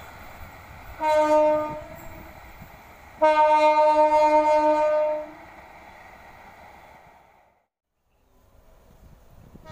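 Diesel locomotive horn of a passenger train, sounded twice: a short blast about a second in, then a longer blast about two seconds later, over the train's running rumble, which then fades away.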